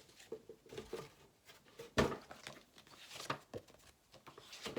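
Paper items and packaging being handled and pulled out: scattered light rustles and taps, with the sharpest tap about two seconds in.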